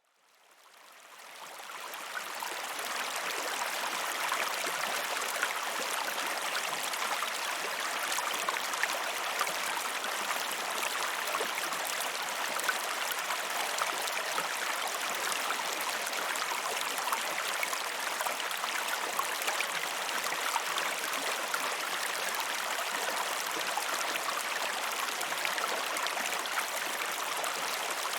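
River water flowing and splashing steadily, a continuous rushing babble with small splashes throughout. It fades in over the first two or three seconds, then holds steady.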